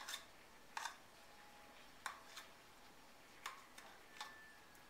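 Faint, irregular clicks and taps, about six in all, of a spoon knocking and scraping the last of the Greek yogurt out of a measuring cup.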